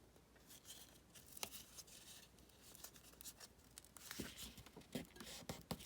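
Faint paper handling: glued paper being folded over and pressed into a crease, with scattered light taps and rubs that grow a little busier near the end.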